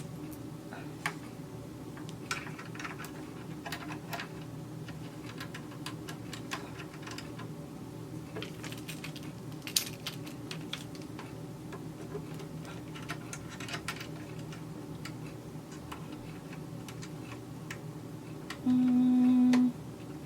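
Small scattered clicks and taps of metal parts, the new lower knife, its screw and a screwdriver, being handled and fitted into a Brother 1034D serger, over a steady low hum. Near the end a loud, steady one-pitch tone sounds for about a second.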